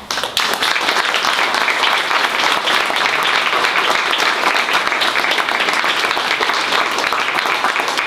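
Audience applauding: many hands clapping at once in a dense, even patter that starts suddenly.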